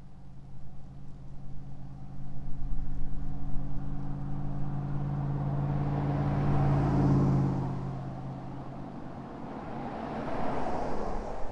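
A car passing by on a nearby road: a low engine hum builds to its loudest about seven seconds in, with tyre and road noise, then fades. A second, weaker swell of road noise comes near the end.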